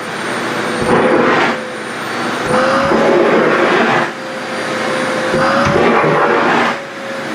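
SHARP EC-KP7F-A vacuum cleaner running with a steady motor whine, its rush of suction air dropping briefly and swelling back three times as the nozzle pulls at and releases cloth.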